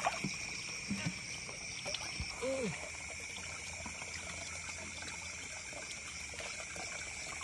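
Night pond ambience: a steady high drone of night insects, with faint trickling and small splashes of water as a wire hand net is swept through the shallow pond. One short, low call sounds about two and a half seconds in.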